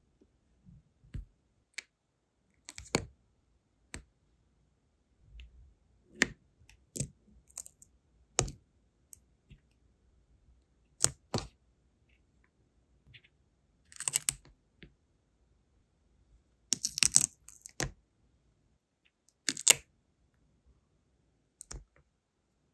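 Scattered small clicks and taps from handling wax seals, tweezers and a brass wax-seal stamp on a silicone mat. The taps come irregularly, a few at a time, with the loudest short clusters in the second half.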